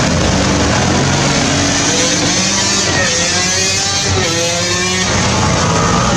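Quad bikes and motorcycles riding past one after another, their engines running together, with a few engine notes rising as riders accelerate between about three and five seconds in.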